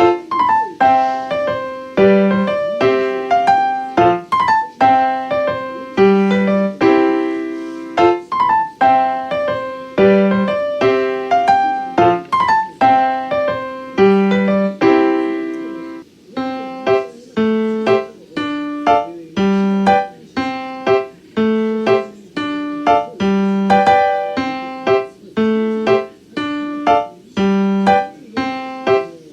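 Background piano music: a steady melody of struck notes that ring and fade over a repeating accompaniment.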